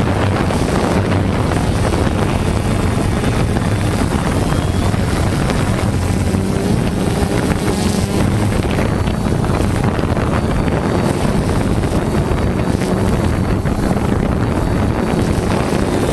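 Quadcopter drone's motors and propellers running with a steady hum, heard from the camera on board, mixed with wind rushing over the microphone.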